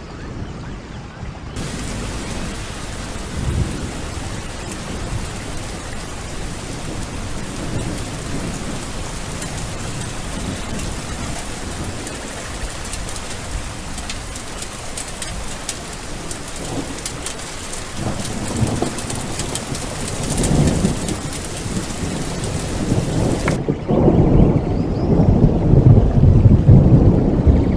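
Steady heavy rain hiss with low rumbling thunder underneath. The rumble grows louder in the last few seconds, where the hiss changes to a duller, rumble-heavy recording.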